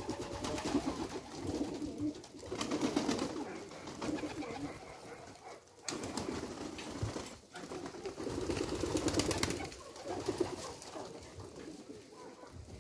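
Domestic pigeons cooing in a flock, several voices overlapping in waves with brief lulls, with light scattered clicks and rustles from the feeding birds.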